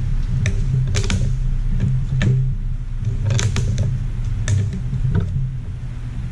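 Oil filter can cutter being cranked around the top of a spin-on oil filter clamped in a vise, giving irregular light clicks and scrapes, over a steady low hum.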